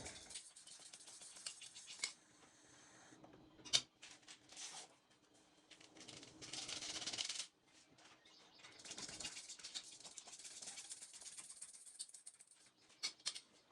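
Quiet rustling and scraping as items are handled, with a few sharp clicks, the loudest about four seconds in and two more near the end.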